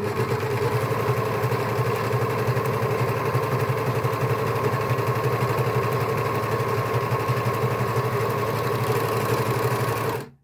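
Janome four-thread overlocker stitching a seam through lightweight stretch cotton, running steadily at speed and stopping just before the end. The differential feed is set to 1.5 so that the seam is not stretched into a bow.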